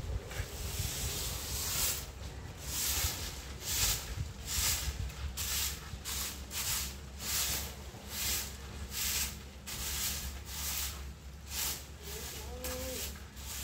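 Long-handled soft bristle broom sweeping leaves and petals across a tiled courtyard, short brushing strokes roughly one to two a second.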